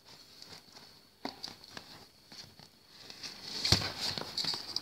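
Hands handling a cardboard gift box on a tiled floor: scattered light taps, scrapes and rustling, busier in the second half, with one sharper knock about three-quarters of the way in.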